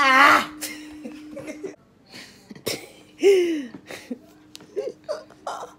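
A woman lets out a loud, high, wavering shriek of laughter, then a loud falling shout about three seconds in, with short laughs and breaths between. A faint steady hum runs underneath.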